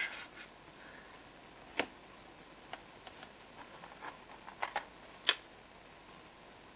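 Scattered light clicks and taps of a metal steelbook Blu-ray case handled with cotton gloves, set down on a table and picked up again; the sharpest tap comes about five seconds in.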